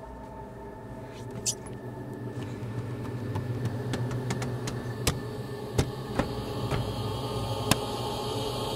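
Hands knocking on the inside of a car window: a handful of sharp knocks, mostly in the second half, over a low steady hum that slowly grows louder.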